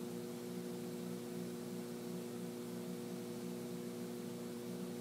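Steady electrical mains hum, several low tones held without change.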